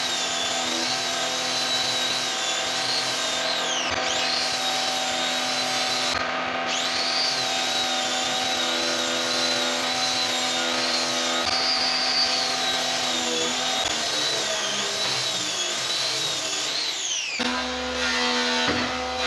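Handheld angle grinder with a sanding disc running against the solid wood of a door panel, its high whine wavering and dipping as the disc is pressed into the wood. The grinder stops a couple of seconds before the end.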